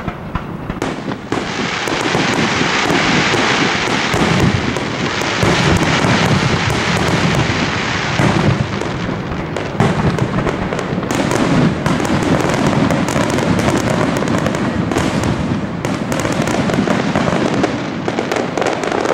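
Aerial fireworks going off in a dense, continuous barrage of booms and crackling, with rapid sharp reports one after another.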